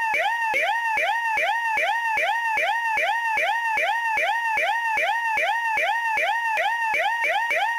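Siren in yelp mode: a rapid wail that rises and levels off, repeated about three times a second without a break, and cuts off suddenly at the end.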